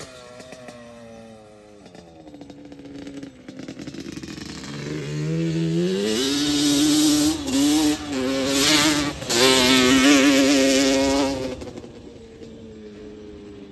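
Yamaha Banshee 350 two-stroke twin engine revving as the quad is ridden hard on a dirt track. The note falls away at first and is fairly quiet. About five seconds in it climbs and gets loud, with two brief breaks in the revs, then drops off near the end.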